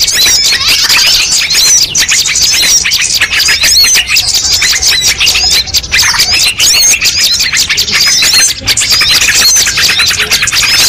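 Dense chorus of many small songbirds of mixed species chirping and twittering at once, with overlapping quick up-and-down notes and no break. This is a bird-luring call mix meant to draw wild birds in.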